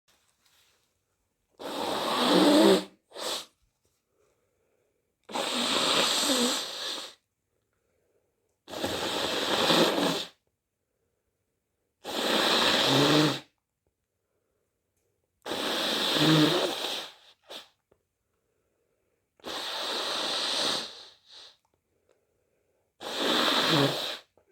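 A person's loud, noisy breaths, seven of them at a steady pace of about one every three and a half seconds. Each lasts about a second and a half and has a rough, throaty edge.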